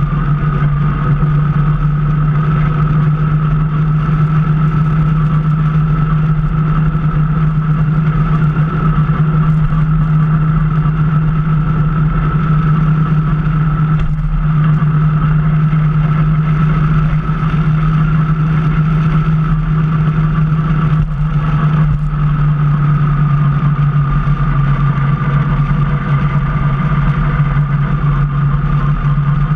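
Motorcycle engine running at a steady cruise, heard from the saddle: an even low drone with a fainter whine above it, holding the same pitch throughout.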